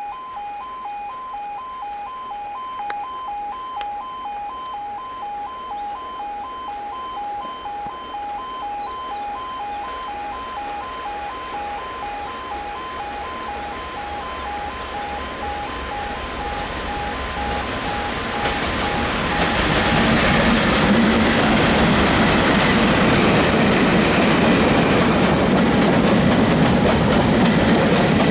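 Level crossing alarm sounding in a steady pulsing two-tone pattern. About two-thirds in, a train hauled by two Class 37 diesel locomotives grows loud as it approaches and passes, with wheels running on the rails, and drowns out the alarm.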